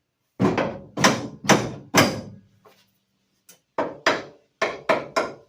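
A heavy-walled steel box-tube bar being knocked down into a tight fit, sharp thunks on metal: four strikes, a pause of about a second and a half, then five quicker ones.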